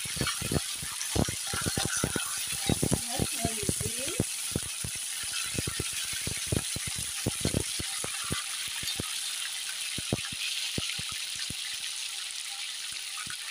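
Whole fresh tilapia deep-frying in very hot oil in a wok: a steady sizzle with many sharp pops and crackles of spattering oil, the pops thinning out toward the end.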